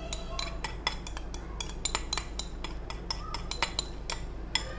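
Metal spoon scraping and tapping against the inside of a ceramic bowl while coconut milk and pandan water are emptied from it: a quick, irregular run of sharp clinks, about four a second.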